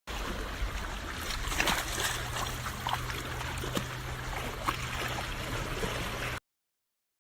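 Water trickling and splashing over a steady low hum, with a few small clicks; it starts and cuts off abruptly.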